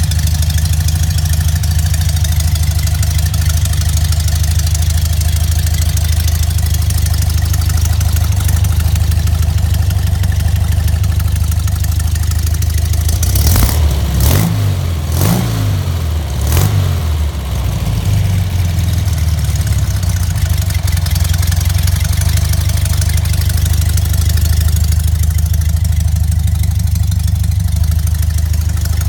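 Rebuilt Porsche 356 air-cooled flat-four engine idling steadily on a test run. About halfway through, the throttle is blipped about four times in quick succession before it settles back to idle.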